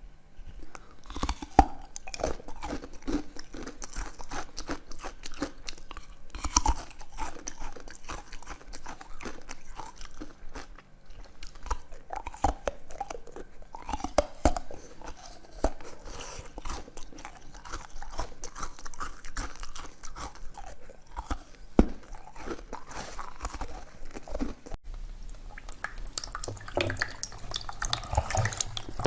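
Close-miked eating sounds: repeated crunchy bites and chewing of food, typical of frozen treats being bitten into. About 25 seconds in the sound changes abruptly to a different, denser texture.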